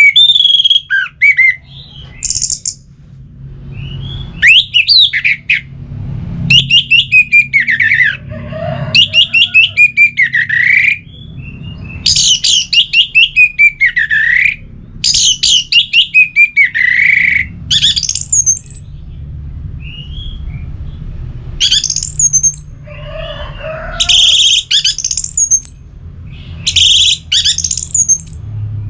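Orange-headed thrush singing a long run of varied, loud phrases of rapid whistled notes, trills and sliding notes, with short pauses between phrases. A faint low hum lies underneath.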